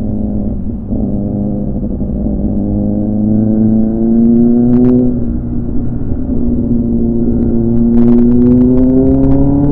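Yamaha R15 V4's 155 cc single-cylinder engine running under way, its pitch climbing slowly, dropping briefly about five seconds in, then climbing again. Low wind and road rumble on the microphone runs under it, with a couple of short clicks.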